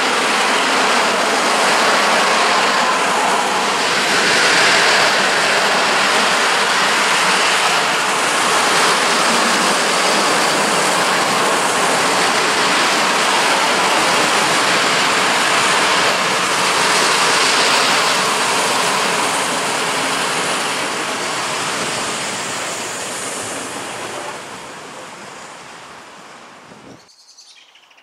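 Freight train of open-top coal wagons loaded with scrap metal rolling past, a steady rushing noise of steel wheels on rail. It fades over the last several seconds as the train goes, then cuts off.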